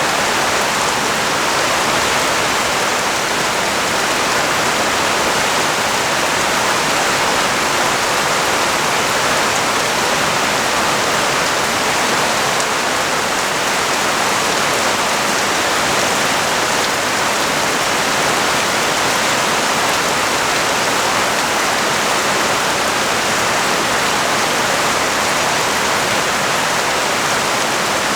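Rain falling steadily: an even, unbroken hiss that does not change.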